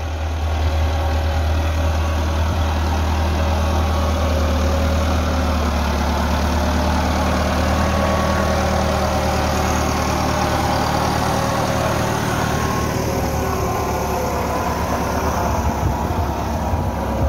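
Massey Ferguson 375 tractor's Perkins diesel engine running steadily as it pulls a puddling implement through a flooded paddy field.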